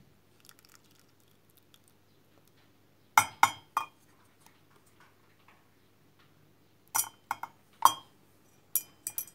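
Sharp clinks of kitchenware against a mug, in three short groups: three about three seconds in, four around seven to eight seconds, and three more near the end, each ringing briefly.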